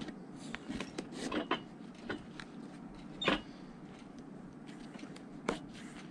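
Thread being drawn through a leather boot welt and sole edge during hand-stitching: several short rasps as it is pulled through, the loudest about three seconds in, with small handling clicks in between.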